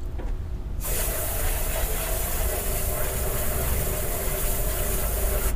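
Compressed air hissing steadily from an air chuck pressed to a light aircraft's wing fuel-tank filler, starting about a second in and cutting off sharply near the end. The tank is being pressurized to push fuel through the dry lines to the fuel sump.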